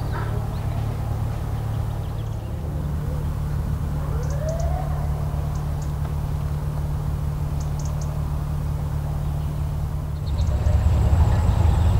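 Narrowboat diesel engine running with a low, steady thrum that grows louder about ten seconds in as the boat passes close, with a few short bird chirps above it.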